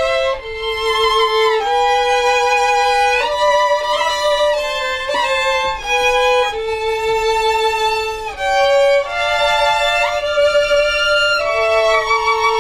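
Three violins playing a csárdás together in harmony: a slow melody of long held notes with vibrato.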